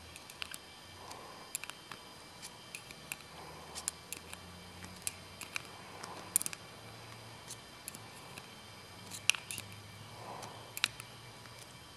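Scattered light metallic clicks and ticks of a hemostat and small fitting parts being handled while a Festo air fitting is worked back into a landing gear cylinder, with a few sharper clicks around the middle and twice near the end.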